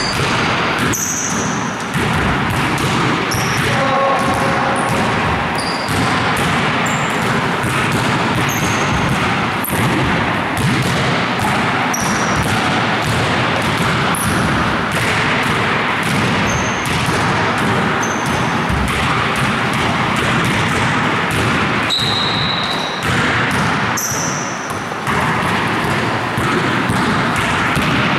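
Basketballs bouncing and being passed on a gym floor, with frequent quick knocks over a steady din and short high squeaks scattered through.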